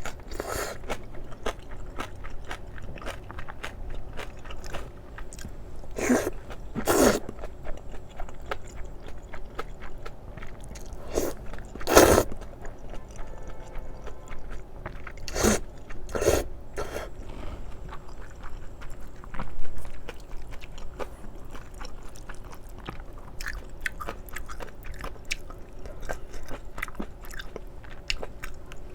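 Close-miked eating of spicy stir-fried octopus with thin wheat noodles: wet chewing and mouth clicks, with a handful of louder mouth sounds in the first half.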